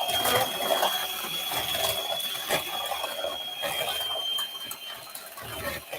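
A geared mixer whisking eggs and sugar until white and fluffy: a steady high whirring whine with rattling gear clicks, the whine stopping a little before the end.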